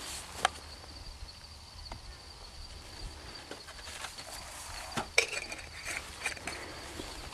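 Scattered light knocks and clicks of PVC pipe and fittings being handled and pushed together, with two sharper knocks, one just after the start and one about five seconds in.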